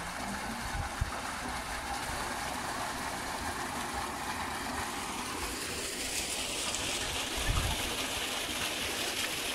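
Water gushing from a solar-powered tubewell's discharge pipe into a concrete tank, a steady rushing splash, its tone growing brighter about six seconds in, with a few low rumbles near the end.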